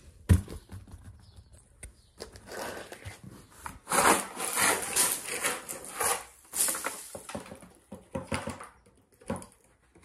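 Small cardboard chunks being shaken out of a cardboard box and scattering across a tile floor: an irregular rustling clatter from about two seconds in, loudest in the middle, after a sharp knock of the box right at the start.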